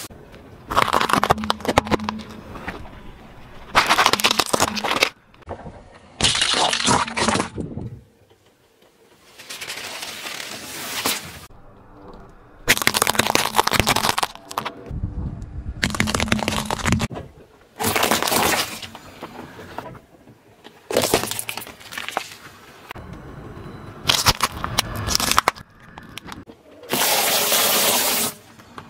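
Car tyre rolling slowly over objects on asphalt and crushing them, in a string of short separate takes: each brings a burst of crackling and crunching, from things such as water-bead-filled balloons and peanuts in the shell.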